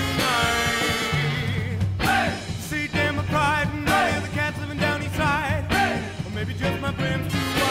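Background music: a band with a sung melody that wavers with vibrato.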